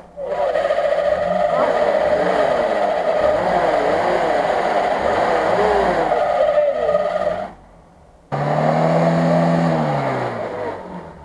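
A UAZ off-roader's engine is revved hard, its pitch rising and falling, as its wheels spin in deep mud. It drops out briefly a little past halfway, then returns, and the revs fall away and fade near the end.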